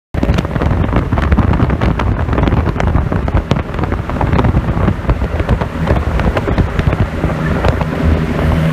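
Turbocharged bridgeported Mazda 13B rotary engine running with a loud, choppy exhaust note full of irregular sharp pops over a low rumble.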